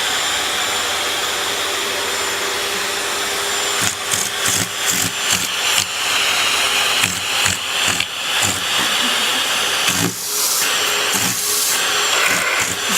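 Vacuum cleaner running steadily, with a series of short knocks and bumps from about four seconds in.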